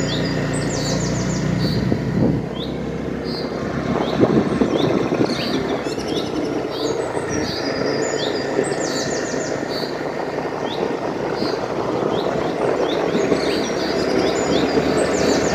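A vehicle running steadily along a road, its engine and road noise a constant low rumble, while birds chirp over it in short repeated phrases and quick trills every few seconds.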